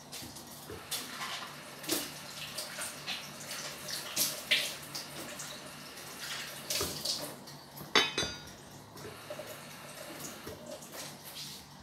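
Water running from a kitchen tap into a sink as a red bell pepper is rinsed under it, splashing irregularly as the hands move the pepper. About eight seconds in there is a sharp knock with a brief ring.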